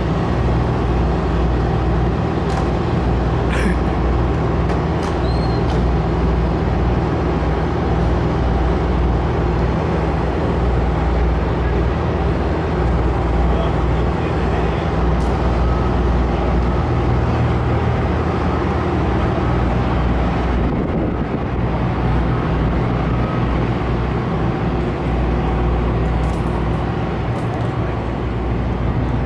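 Diesel engines of Hitachi demolition excavators running steadily, a deep continuous drone with a few faint clicks and knocks over it.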